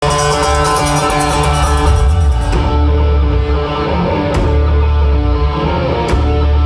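Live heavy-metal band playing: distorted electric guitars over bass and drums, with cymbal crashes every couple of seconds, heard as a loud concert recording.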